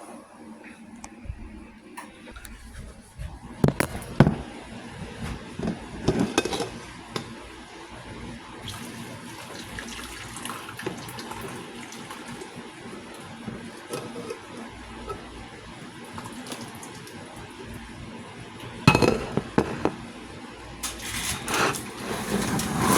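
Water running from a kitchen tap into a sink, with sharp knocks and clatter of dishes and utensils near the start and again near the end.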